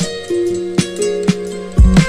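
Background music: plucked-string instrument notes over a beat, with a drum hit about every half second.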